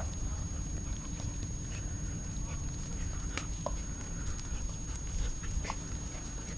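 A Hamiltonstovare puppy and a labradoodle playing over a chew, with small scattered clicks and scuffles of mouths and paws over a low steady rumble.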